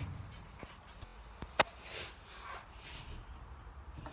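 A sharp click about one and a half seconds in, among faint knocks and rustling.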